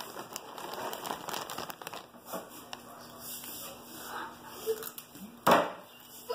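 Rustling and handling noises, then one sharp knock about five and a half seconds in as a drink bottle is put down on its side on a wooden table.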